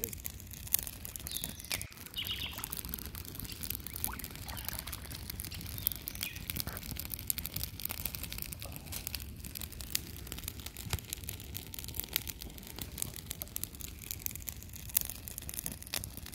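Outdoor wilderness ambience: a few short bird chirps over a low steady rumble, with many small scattered ticks.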